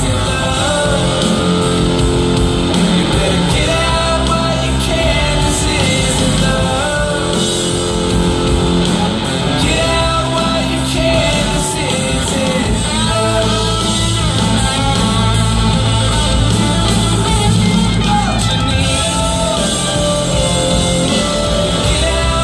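Loud rock song: a singer over guitar, bass and drums with a steady beat.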